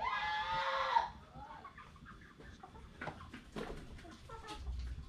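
A chicken gives one loud call lasting about a second, followed by quieter scattered clucks and a few light knocks.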